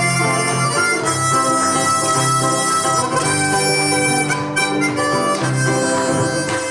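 Instrumental introduction to a Russian folk song arranged in country style: a held melody line over a repeating bass, before the singing begins.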